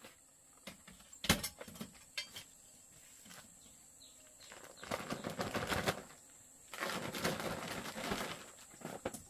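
Chicken wings flapping in two noisy bursts of a second or more each, after a single sharp knock about a second in.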